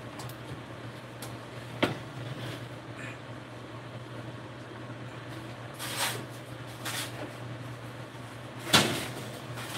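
A round baking pan being lifted off a glass-top electric stove, with a sharp knock about two seconds in, a few clunks later and the loudest knock near the end, like a door shutting. A steady low hum runs underneath.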